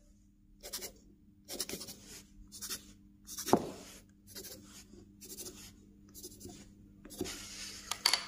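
Pencil scribbling zigzag hatching onto a block of wood: a run of short, scratchy strokes in irregular bursts, the loudest about three and a half seconds in. A faint steady low hum runs underneath.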